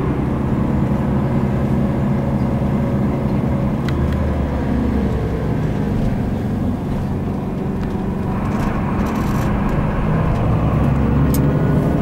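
Tour coach heard from inside the passenger cabin: a steady engine hum and road noise while the coach drives along, the engine note shifting about four to five seconds in and getting a little louder near the end.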